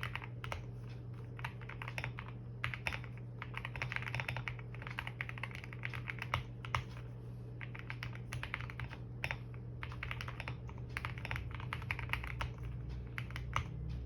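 Typing on a QK65 65% mechanical keyboard: a fast, irregular stream of key clicks in bursts, with a steady low hum underneath.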